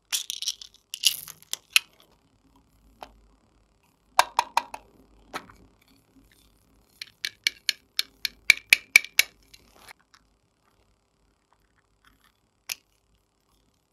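Small plastic craft containers clicking and tapping as glitter, sequins and pearl beads are shaken out onto slime in a glass dish. The clicks come in clusters, with a quick run of about a dozen sharp taps, roughly three a second, from about seven to ten seconds in, and one lone click near the end.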